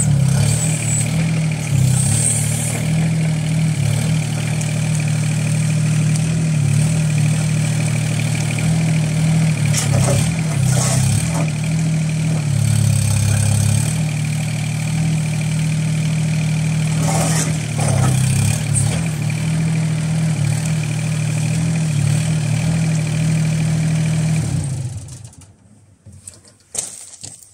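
Small Yanmar diesel engine of a Wombat 1300B mini excavator running steadily while the boom and tracks are worked, with a few brief changes in engine note under load. It shuts off near the end.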